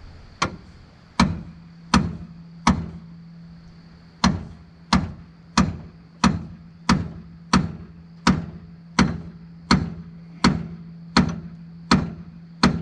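Repeated hammer blows, metal on metal, on a stuck pitman arm to knock it off the steering box's sector shaft. Four blows, a short pause, then a steady run of about one strike every 0.7 s.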